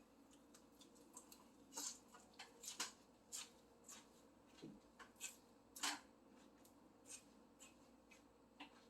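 Close-miked eating sounds: a person chewing roast duck, with short, irregularly spaced wet clicks and crackles from the mouth.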